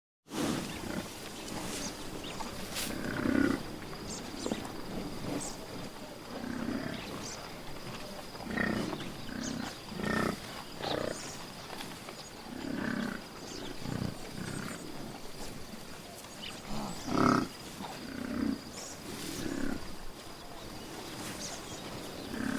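A large animal making a series of short, low grunting calls, about one every second or two, one of them louder about seventeen seconds in.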